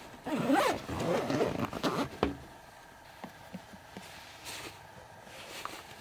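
Backpack zipper being pulled in quick sweeping strokes for about two seconds, ending in a sharp click, followed by faint handling ticks.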